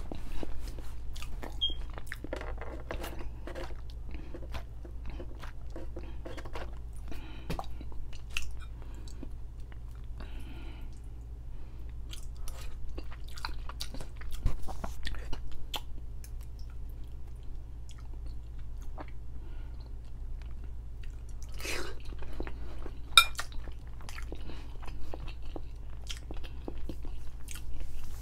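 Close-up wet chewing and mouth smacks of someone eating saucy noodles with sausage and potatoes, many small clicks over a steady low hum. Near the end comes a sharper ringing tap, like a fork against the glass bowl.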